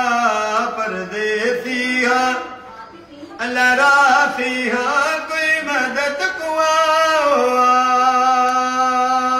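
An elderly man singing a Punjabi noha, a Shia devotional lament, unaccompanied. He draws out long, wavering held notes, breaking off briefly for breath about three seconds in.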